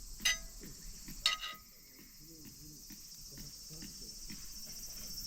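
Insects chirping in a steady high chorus, with two short metallic clinks that ring briefly, about a quarter second and a second and a quarter in.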